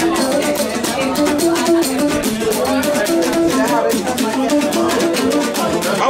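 Live music: a plucked string instrument playing a repeating pattern of short notes, with a shaker rattle keeping a fast beat over it.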